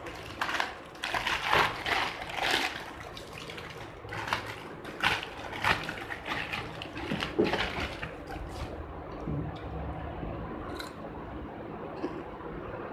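A plastic courier mailer bag crinkling and rustling as it is pulled open by hand, in a quick run of crackles; after about eight seconds it thins to a few light handling clicks.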